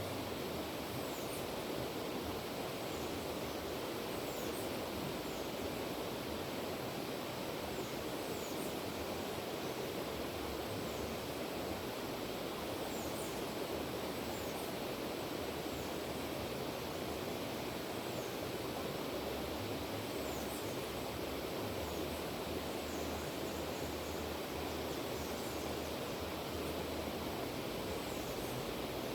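River water rushing steadily over rocks, with short high chirps now and then.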